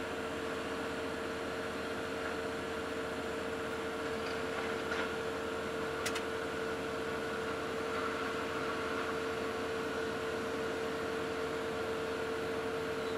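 Excavator engine and hydraulics running steadily under load, heard from inside the cab as an even hum with a constant whine. A brief click comes about six seconds in.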